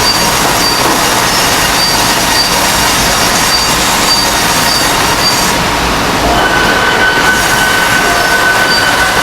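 Double-cut bandsaw headrig sawing a red oak log: a loud, steady noise of the band blade running and cutting, with a short high squeal repeating about twice a second. Past the middle the squeal gives way to a steady high whine.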